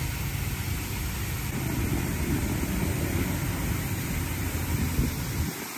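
Razor touchless car wash's high-pressure spray arm jetting water over a car: a steady hiss of spray with a low rumble underneath that drops away near the end.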